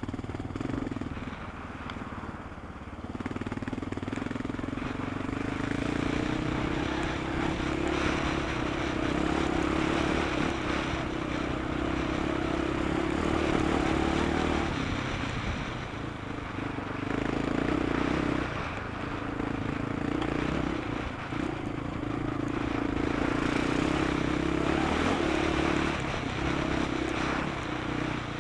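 Onboard engine of an off-road rally vehicle running hard along a dirt track. The steady engine note drops briefly every few seconds, then picks up again.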